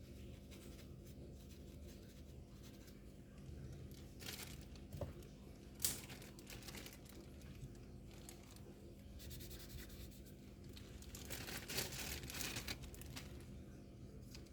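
Faint crinkling and tearing of plastic packaging being handled, with a sharp click about six seconds in and a denser run of crinkling near the end, over a steady low hum.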